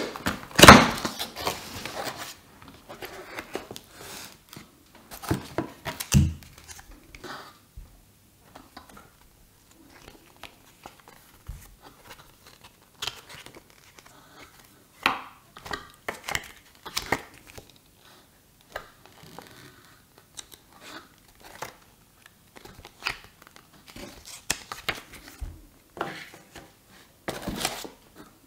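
Unboxing packaging handled by hand: cardboard box, paper manual, foam inserts and plastic wrapping rustling, crinkling and knocking in irregular bursts, loudest in the first two seconds, with bubble wrap crinkling near the end as the wrapped projector is lifted out.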